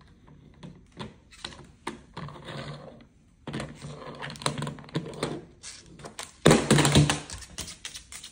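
A Moluccan cockatoo's beak knocking and pushing a hard plastic toy mirror across a stone countertop: a run of sharp clicks, taps and scrapes, with the loudest clatter about six and a half seconds in.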